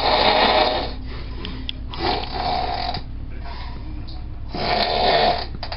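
A person snoring heavily: loud, rough snores, each about a second long, one every two and a half seconds or so, over a faint steady low hum.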